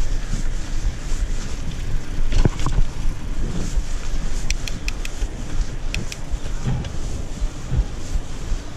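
Wind buffeting the microphone of a camera on a moving bicycle, a steady low rumble, with a few short sharp clicks around the middle.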